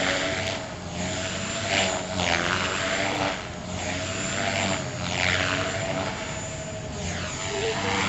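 Radio-controlled helicopter in flight: a steady high motor whine with a rotor whoosh that swells and fades every two seconds or so as it manoeuvres.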